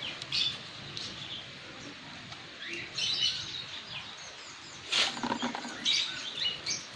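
Small birds chirping and twittering, with one sharp crack about five seconds in.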